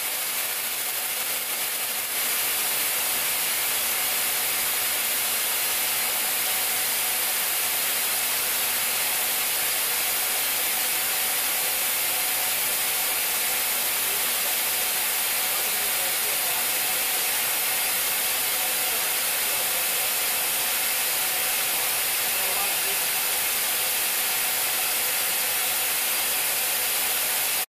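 Chevalier 2040MV CNC vertical machining center running: a steady high hiss over a faint hum, growing louder about two seconds in and holding level.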